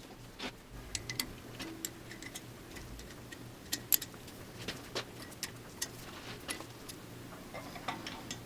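Light metallic clicks and taps, irregularly spaced, from a 1/4 inch breaker bar and socket being worked on ARP head studs to snug them down.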